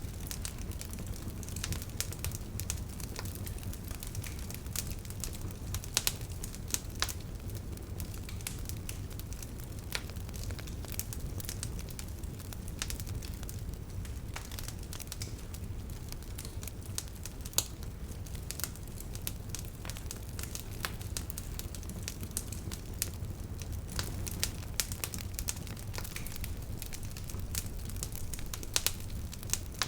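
Wood bonfire crackling: irregular sharp pops and snaps from the burning wood over a steady low rumble of the flames.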